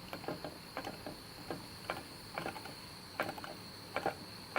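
Light clicks and knocks in small clusters, about one cluster every three-quarters of a second, from a model Stirling engine's moving parts turning over slowly as it is heated with a blowtorch on a first attempt to run it.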